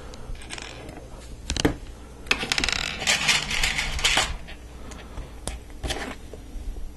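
Loose plastic LEGO Technic pieces clattering as a hand rummages through a pile of parts on a table, a dense rattle of about two seconds in the middle. A few single clicks come before and after it as pieces are picked up and handled.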